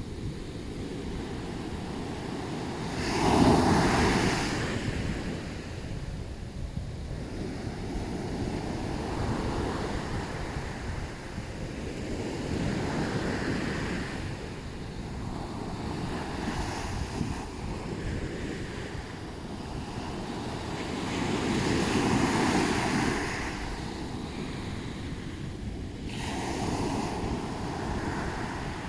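Ocean waves breaking on a beach, the surf swelling and fading, with the biggest wave crashing about three seconds in and another around twenty-two seconds. Wind rumbles on the microphone underneath.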